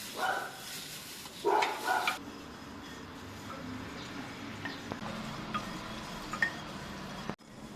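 Something being stirred in a metal pan over heat: a steady sizzling rustle with scattered light clinks of the spoon against the pan. Two short pitched calls, voice or animal, come in the first two seconds and are the loudest sounds.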